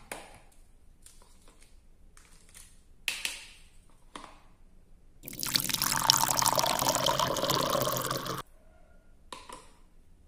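Water poured from a small plastic toy pot onto a plastic plate, a steady splashing pour lasting about three seconds, starting about five seconds in. A few light clicks of plastic toy pieces come before and after it.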